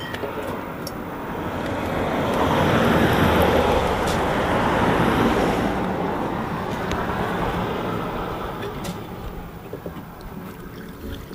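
A road vehicle passes close by, its noise swelling to a peak a few seconds in and then slowly fading away.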